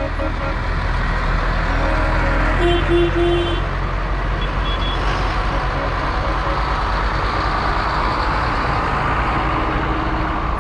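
Tractor engines running steadily in a passing parade, with a brief run of short horn toots about three seconds in.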